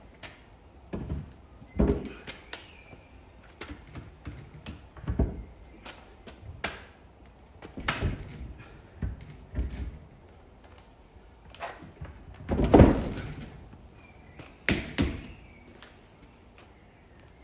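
Heavy irregular knocks and thuds of green oak timbers being knocked together as a beam is fitted onto its mortise-and-tenon joints, a dozen or more strikes with the loudest about three quarters of the way through.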